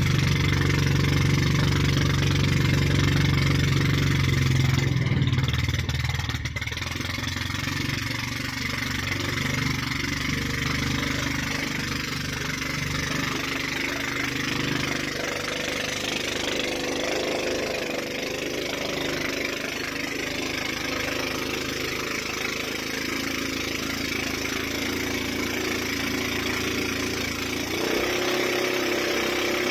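A boat's gasoline engine running steadily as the boat moves across open water. It is louder for the first five seconds or so, then eases off, and picks up again with a change in its note near the end.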